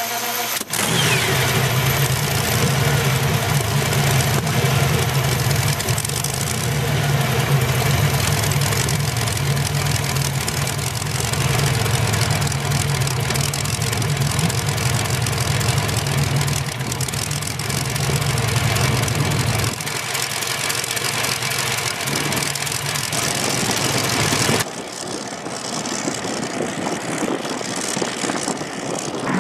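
A pair of large boat engines with open exhaust stacks running loudly at idle; the sound changes about two-thirds of the way through. Near the end the boat is heard running on the water.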